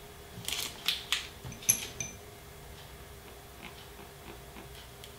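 Small steel parts clinking as they are handled: a few light metallic clinks and taps in the first two seconds, one ringing briefly, as the next cylinder stud for the two-stroke engine's top end is picked up. After that only faint handling ticks.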